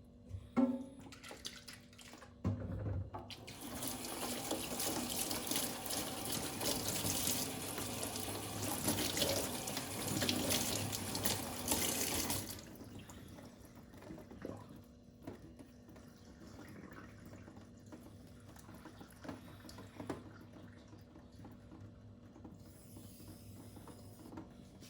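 Water running from a tap for about ten seconds, starting a couple of seconds in and stopping suddenly, followed by faint small handling clicks.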